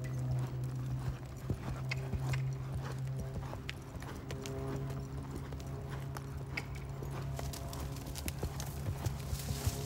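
Hoofbeats of a paint gelding cantering on a sand arena, an uneven run of dull knocks, over steady background music.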